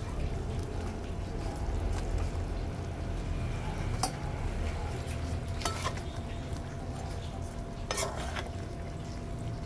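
Pork belly pieces frying in a pan of sauce, with a steady low rumble under it, as onion rings go in. Three sharp knocks of a utensil against the pan come about four, five and a half and eight seconds in.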